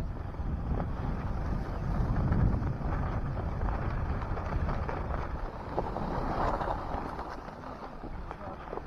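Wind buffeting the microphone: an uneven low rumble and rush, strongest a couple of seconds in.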